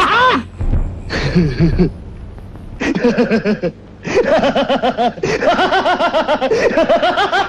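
Loud human laughter. A few voiced outbursts come at first, then from about three seconds in a long run of rapid 'ha-ha-ha' pulses.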